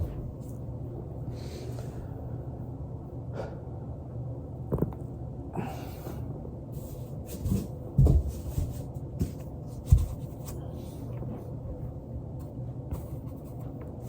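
A steady low hum with several dull thumps and knocks, the loudest about eight and ten seconds in, and a few short hissing rushes.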